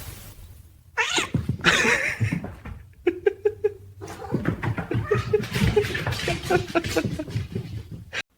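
A cat vocalising: a long yowling call about a second in, then a run of many short, quick calls, cut off suddenly just before the end.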